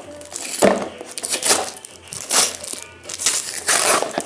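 Parcel packaging being opened by hand, crinkling and rustling in several short bursts, with a longer, louder stretch near the end.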